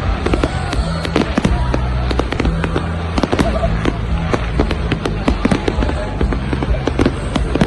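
Fireworks going off in rapid succession, many sharp bangs and crackles a fraction of a second apart, over loud music with a steady bass.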